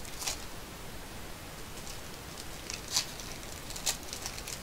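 Crinkling of a Bowman baseball card pack's plastic wrapper being torn open by hand, in short bursts about a third of a second in, around three seconds and near the end, over a steady hiss.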